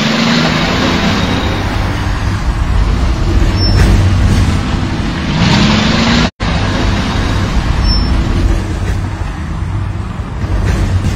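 Heavy vehicle rumble with a steady hiss, with short rising glides near the start and around five and a half seconds in, cutting out for an instant just past halfway.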